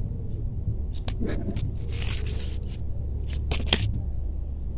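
Cloth and a tape measure being handled on fabric: rustling, a brief swish about two seconds in, and a few light clicks, over a low steady hum.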